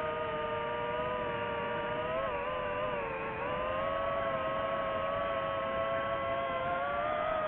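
DJI FPV drone's motors and propellers whining in flight, several pitches sounding together over a rushing hiss. The pitch wavers and dips about two seconds in, then climbs back and holds steady.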